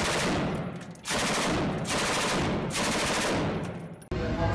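Long strings of rapid automatic gunfire, broken by a short pause about a second in and stopping abruptly about four seconds in.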